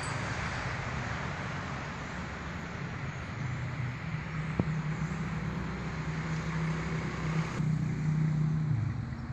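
Road traffic: a steady wash of passing cars with engine hum. One vehicle is louder about eight seconds in, and its pitch drops as it goes by. A single click about halfway through.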